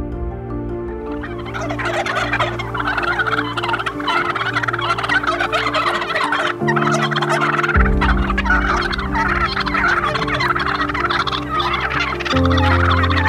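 A flock of wild turkey toms gobbling and calling over one another in a dense, continuous chorus that begins about a second in. Soft background music with slow chord changes runs underneath.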